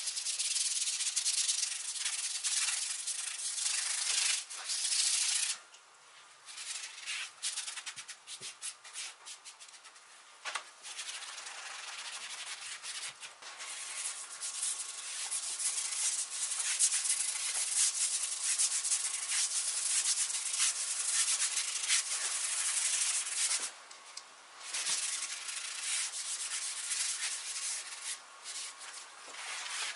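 Paintbrush bristles scrubbing wood stain into a bare wooden panel: a hissy, scratchy brushing in repeated strokes, broken by a few short pauses.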